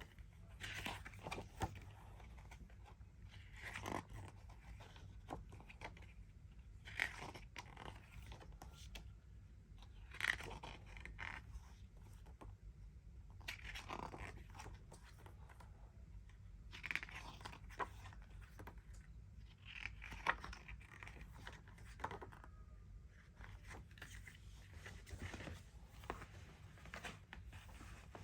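Handling of a CD box set's packaging: rustling, crinkling and scraping of paper, cardboard and plastic in short bursts every few seconds, over a low steady hum.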